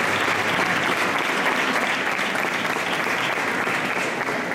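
Crowd applauding steadily, easing off slightly near the end.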